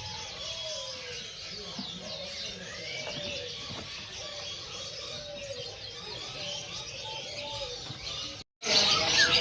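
Many caged songbirds chirping and singing at once, with voices murmuring underneath. The sound cuts out briefly near the end and comes back louder.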